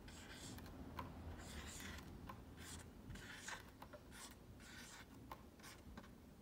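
Expo dry-erase marker writing on a whiteboard: faint, short scratchy strokes of the tip across the surface, broken by small taps as the tip lifts and touches down letter by letter.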